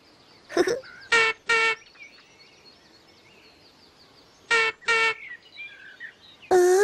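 Scooter horn tooting twice, then twice more about three seconds later, with faint birdsong behind.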